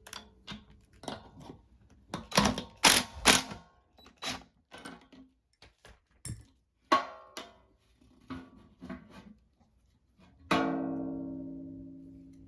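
Acoustic guitar music: single plucked notes and chords at uneven intervals, with one strong chord about ten and a half seconds in that rings out slowly.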